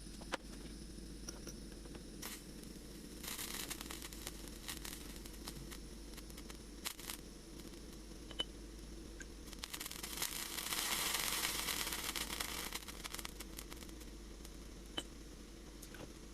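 Scraping or scrubbing on parts of a rusty hand-cranked grinder, in two stretches, a short one early and a longer, louder one past the middle, with scattered light clicks and knocks of handling over a steady low hum.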